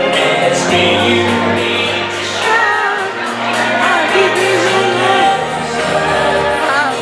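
Slow pop song with a sung vocal melody over bass and sustained chords, played loud over a hall's sound system for a couples' dance.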